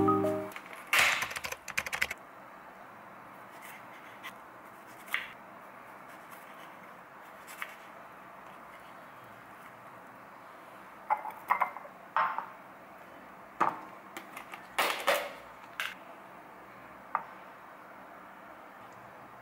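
Quiet food-handling sounds on a wooden cutting board: scattered soft clicks, taps and rustles with short gaps between them, in two small clusters a second in and again midway. A faint steady hiss lies underneath.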